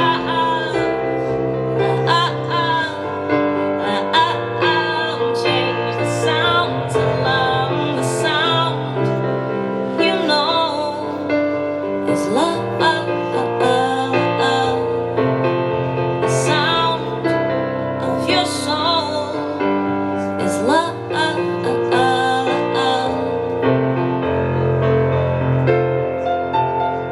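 Live band music led by an electric keyboard, over a steady bass line with regular cymbal strikes. Several quick upward pitch slides sound through the middle.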